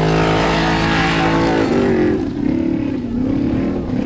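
Formula Offroad buggy's engine at high revs as it claws up a steep gravel hillclimb. It holds a steady high note for about two seconds, then the pitch wavers up and down as the revs rise and fall.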